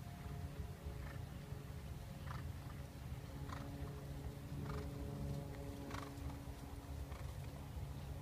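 Ridden dressage horse moving on a sand arena, with a soft sound recurring about every second over a steady low hum.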